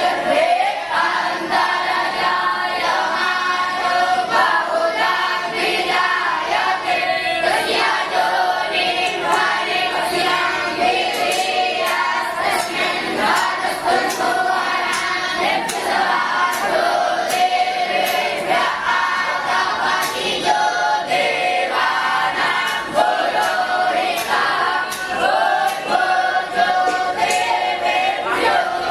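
A group of voices singing together in unison, a continuous melodic line without pauses.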